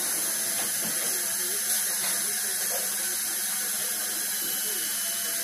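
High-speed dental handpiece (air-turbine drill) running on the upper front teeth to prepare them for a Maryland bridge, a steady high whine over a hiss.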